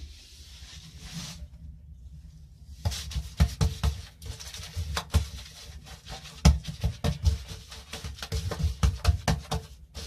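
Natural-bristle paintbrush working emulsion paint onto a cupboard wall: irregular brushing strokes with small knocks. The strokes start about three seconds in, after a short quieter spell.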